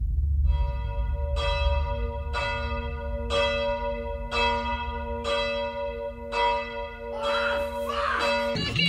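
A bell tolling about once a second at the same pitch, each stroke ringing on into the next, over a steady low rumble. It cuts off shortly before the end.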